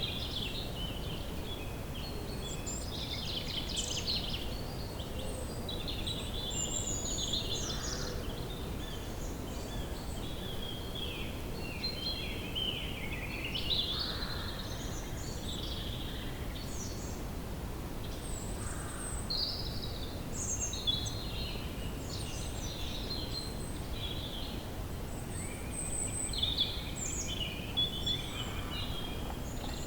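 Woodland ambience: several birds calling and chirping continuously in short, overlapping phrases, over a steady low background rumble.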